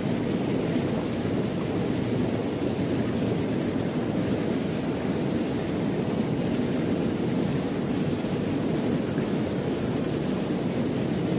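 Fast-flowing river current rushing steadily, an even low wash of water with no breaks.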